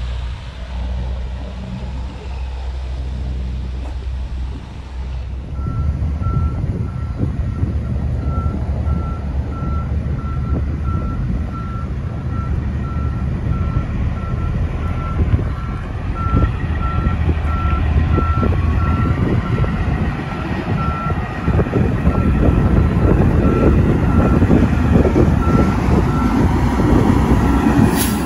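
Heavy-haul diesel semi truck running, with a reversing alarm beeping at an even pace from a few seconds in until near the end. The engine grows louder over the last few seconds.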